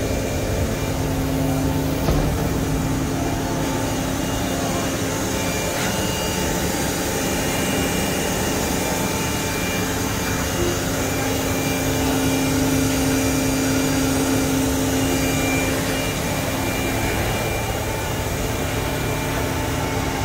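Mazak Nexus 4000-III CNC horizontal machining center running: a steady machine whir and hum with several held whining tones. The lower tone strengthens for a few seconds past the middle.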